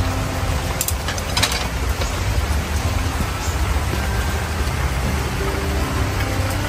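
Steady rain falling, an even continuous hiss with a low rumble beneath, and two light clicks about a second in.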